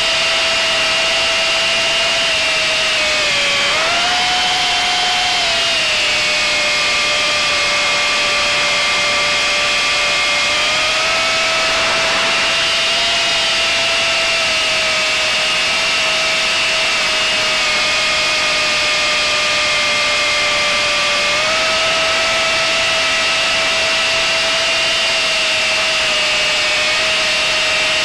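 Small quadcopter drone's electric motors and propellers whining steadily, heard from its onboard camera. The pitch dips and then rises about four seconds in, and steps up a little around ten and twenty-one seconds in.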